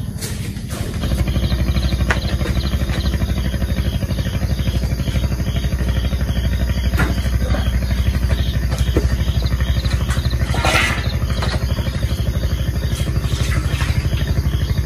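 A steady low drone with a fast, even pulse, joined about a second in, with a few clinks of pots and dishes being washed over it.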